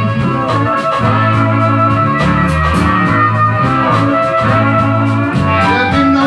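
Live blues band playing an instrumental passage between vocal lines: guitar, bass and drums, with a harmonica played into cupped hands.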